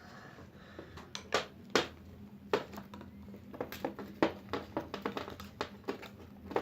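Borax-activated homemade slime being mixed and kneaded by hand: irregular sticky clicks and smacks, some sharp and loud, as the slime firms up.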